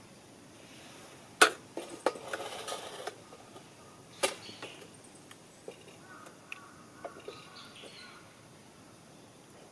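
Sharp knocks of hard objects: a loud one about a second and a half in, another followed by about a second of clatter, and a third about four seconds in, then scattered small ticks.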